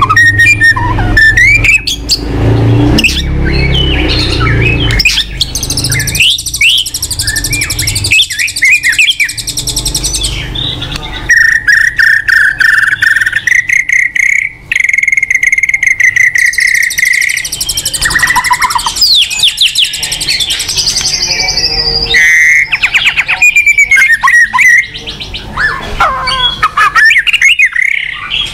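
White-rumped shama singing a loud, varied song of whistles, rapid trills and sharp chips, with one long held whistle near the middle. A low rumble runs under the first several seconds.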